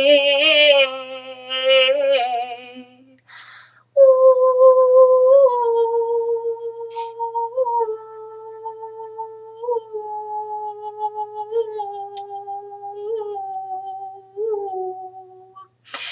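A woman toning: a wavering sung vowel for the first couple of seconds, a breath, then one long high hum that sinks slowly in pitch, with small catches in the voice every couple of seconds.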